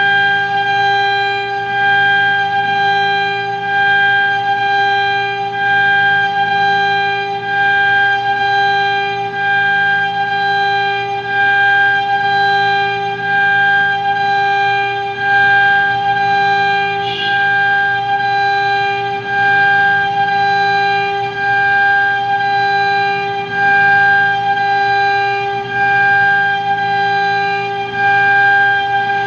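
A loud, steady droning tone held on one unchanging pitch with several overtones, swelling and easing in loudness every second or two.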